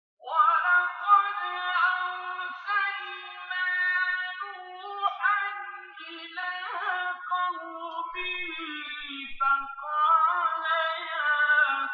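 Quran recitation in Arabic, chanted in a melodic style by a single voice, with long held notes and ornamented turns, heard through a television speaker in a small room.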